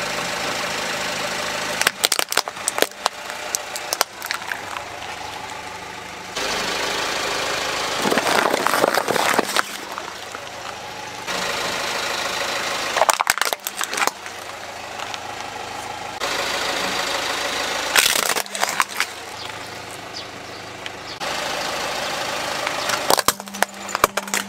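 A car tyre rolling over and crushing plastic toys on concrete: five bursts of cracking and snapping plastic, about one every five seconds, each over the steady idle of the car's engine.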